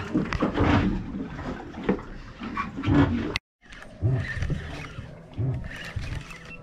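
Wind buffeting the microphone on an open boat deck, an uneven gusty rumble with hiss. It cuts out briefly about three and a half seconds in, then goes on in uneven pulses.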